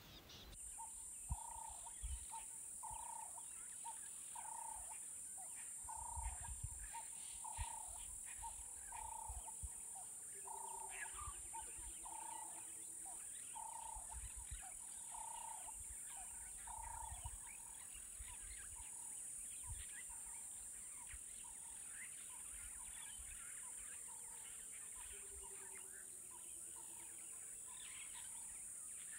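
Bush ambience: a steady high-pitched insect drone, with a short call repeated a little more than once a second, clear at first and fainter for the second half.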